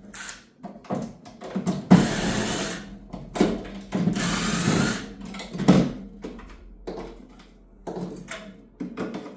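Power drill-driver running twice for about a second each, driving screws to fix a fridge door hinge in place. Knocks and clicks of the hinge and fridge parts are handled in between.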